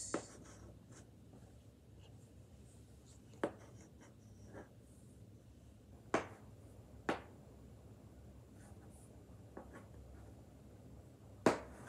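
Chalk writing on a child's toy chalkboard: quiet scratching of the chalk, with several sharp taps as the digits are written.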